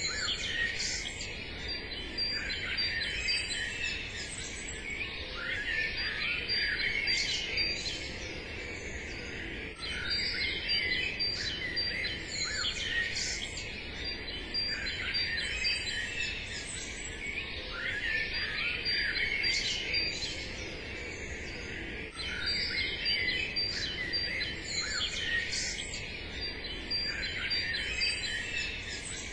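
Songbirds singing and chirping together in a dense, continuous chorus of overlapping high calls.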